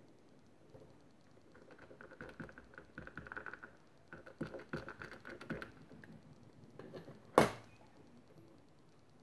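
Small ink pad dabbed again and again onto a rubber stamp, a quick run of soft taps, then one sharp clack about seven seconds in as the clear hinged lid of a stamp-positioning platform is shut onto the card.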